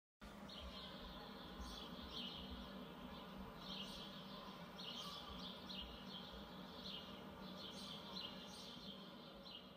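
Faint outdoor ambience: small birds chirping again and again in short high calls over a steady low background noise.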